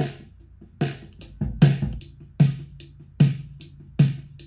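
Close-miked snare drum recording from the top and bottom snare mics, soloed and played back in a loop: a sharp snare hit about every 0.8 s, with faint small ticks between the hits.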